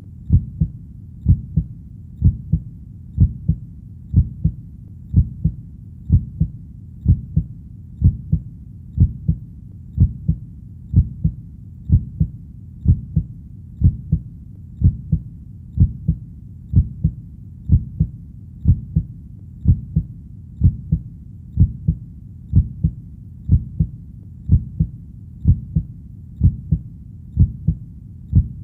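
Human heartbeat sound, a steady lub-dub double thump repeating at about one beat a second, low and muffled.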